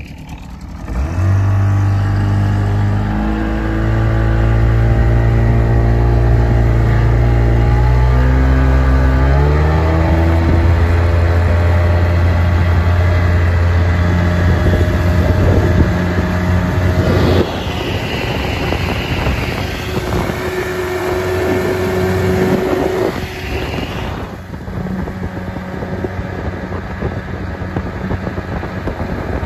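Boat's outboard motor throttling up from low speed, its pitch rising in steps over the first ten seconds, then running steadily at speed. The engine note drops back about 17 seconds in and eases again near 24 seconds as the throttle comes off.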